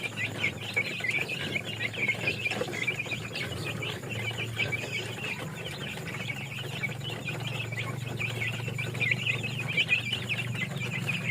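A crowd of young chicks peeping nonstop, many short high cheeps overlapping, over a low steady hum.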